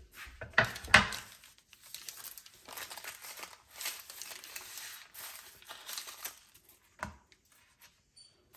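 Baking paper crinkling and flaky puff pastry crackling as baked slices of coconut tart are lifted off the paper. The loudest sounds are two sharp knocks about a second in, from a wooden cutting board being set down on the stone counter, and there is another short knock near the end.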